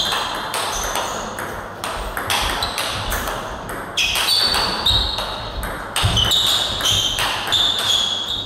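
Table tennis rally: the ball clicking back and forth off the bats and the table, two to three hits a second.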